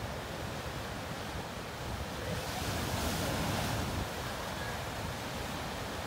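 Atlantic surf breaking and washing over rocky ledges, with one wave crashing louder about two seconds in. Wind rumbles on the microphone.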